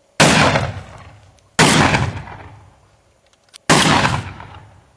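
Three shots from a short-barreled, cylinder-bore (no-choke) shotgun loaded with number 2 birdshot, the first two about a second and a half apart and the third two seconds later. Each is a sharp report that trails off over about a second.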